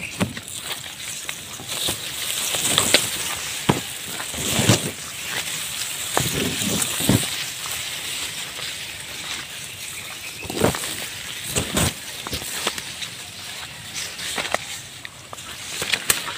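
Ferns and undergrowth rustling and brushing as someone pushes through on foot, with irregular cracks of twigs and footsteps.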